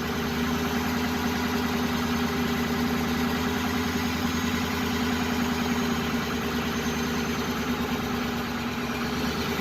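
Flatbed truck engine, fully warmed up, held steady at about 800 to 900 rpm, the speed range where it misfires worst. It runs with a steady hum and an uneven, shaking beat from the misfire.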